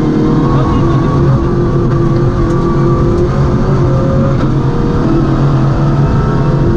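MINI rally car's engine running hard at speed, heard from inside the cockpit, its pitch shifting a few times as the revs change.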